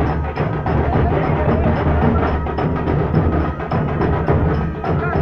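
Loud festival drumming: deep drum beats under sharp strokes repeating at a quick, even rhythm.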